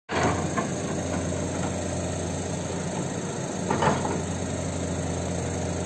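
Hydraulic excavator's diesel engine running steadily with a deep hum, with short louder noises just after the start and near four seconds as the machine works.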